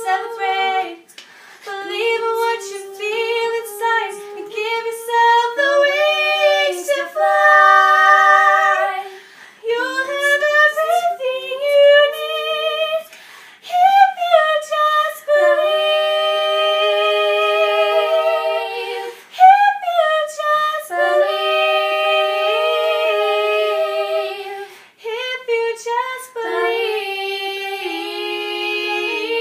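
Three girls singing a Christmas song a cappella in close harmony, several voices moving together in short phrases and then holding long notes with vibrato.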